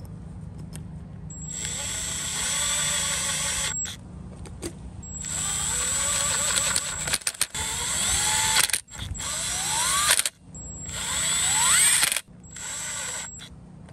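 Cordless impact driver driving the screws of a drive flange cover into a wheel hub, in about six short runs of one to two seconds each. Several runs rise in pitch as the motor speeds up.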